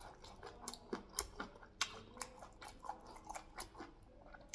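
A person chewing sweet corn and pear, with small sharp mouth clicks about three a second.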